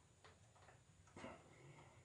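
Near silence with a few faint clicks and taps of hands handling wires and a small plastic electrical unit. One louder tap comes just past a second in.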